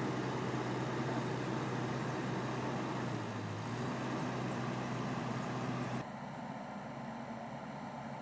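Excavator's diesel engine running steadily at idle, a constant low hum. About six seconds in, the sound drops suddenly to a quieter level.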